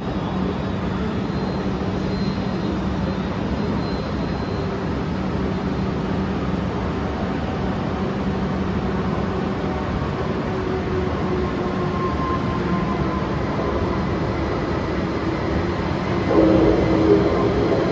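Steady low hum and rumble of an underground railway station, then an arriving train, most likely a Siemens Desiro double-deck electric multiple unit (SBB RABe 514), getting louder about sixteen seconds in with a steady whine as it runs into the platform.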